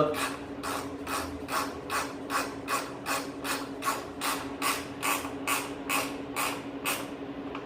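Ratcheting wrench being worked back and forth to tighten a bolt, its pawl clicking in regular strokes about two and a half a second and stopping about seven seconds in, over a steady low hum.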